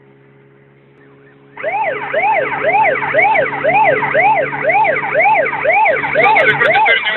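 Police car siren switching on about a second and a half in and wailing in quick rise-and-fall sweeps, about two a second. Before it starts there is only a low steady hum.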